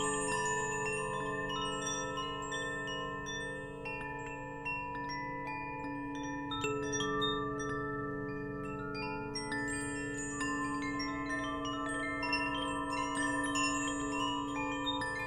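Wind chimes tinkling steadily, many tones struck in quick succession and ringing on over one another, with a deeper tone sustaining beneath the higher ones.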